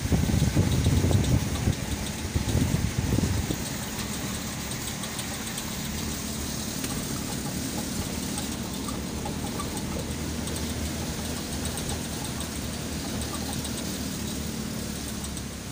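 Motor vehicle's engine and road noise heard from inside the cabin while driving. There is a louder, uneven low rumble for the first three seconds or so, then a steady hum.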